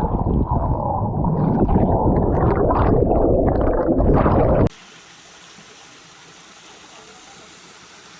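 Loud, muffled churning and gurgling of water, as heard by a camera plunged underwater in a waterfall pool. It cuts off abruptly about four and a half seconds in to the steady soft rush of the stream and waterfall.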